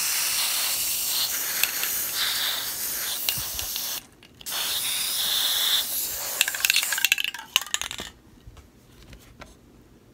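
Aerosol spray-paint can spraying in a steady loud hiss, with a short break about four seconds in. Near the end the spray breaks into sputtering spits and then stops.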